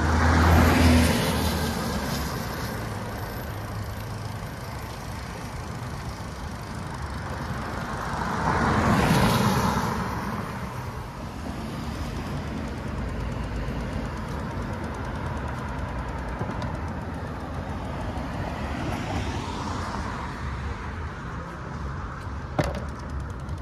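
Cars passing one after another on a wet street: three swells of engine and tyre hiss that rise and fade, the third fainter, over a steady low traffic rumble. A single sharp click sounds near the end.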